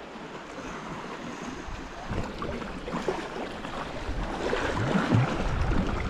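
Sea water splashing and lapping around a sea kayak as it is paddled, with wind on the microphone; it grows louder about two seconds in.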